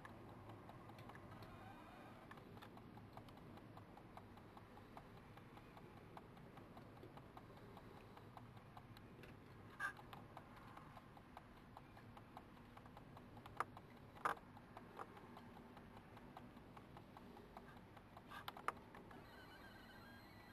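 Near silence with faint scattered clicks and taps over a low hiss, and a few sharper clicks: one about halfway, two a little later and a pair near the end.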